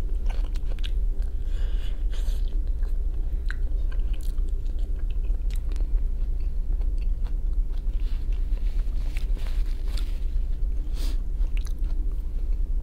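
Close-up chewing and biting: a mouth working through fried capelin and potato, with many small wet clicks and a little crunch, over a steady low hum.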